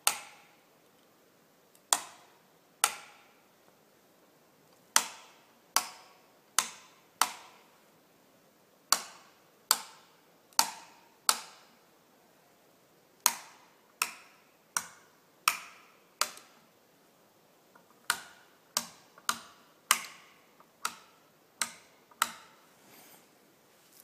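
Sharp plastic clicks as the buttons of wall-switch panels are pressed one after another, switching lamps on and off. About two dozen clicks come in small groups, each with a brief fading ring.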